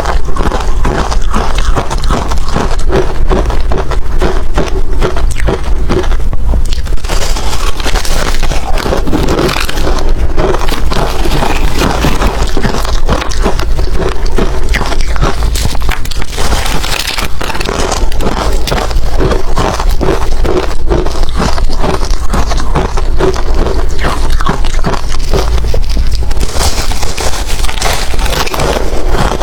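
Hard ice being bitten and chewed, a loud, dense run of crunches and crackles that goes on without a break.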